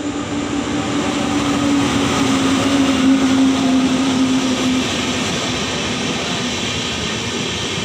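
Indian Railways WAP-7 electric locomotive and its express passenger coaches running through a station at speed: a loud, steady rush and rumble of wheels on rail. A steady low tone sounds over about the first five seconds and dips slightly in pitch as the locomotive goes by.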